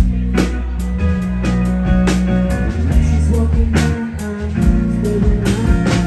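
Band playing live: electric guitar, electric bass and drum kit, at a steady loud level with regular drum hits.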